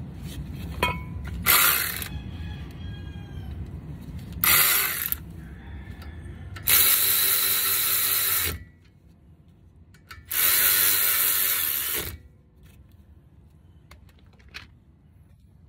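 Cordless power ratchet running in four bursts, the last two the longest at nearly two seconds each, driving in the bolts of a newly fitted front brake caliper.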